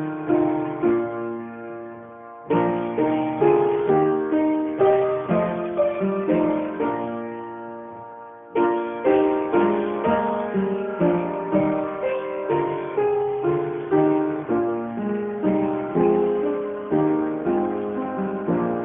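Instrumental piano music of struck, decaying notes in slow phrases, with brief dips in the playing about two and eight seconds in.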